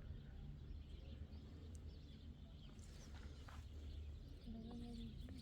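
Faint outdoor ambience: a steady low rumble with scattered faint bird chirps, and a short low call near the end.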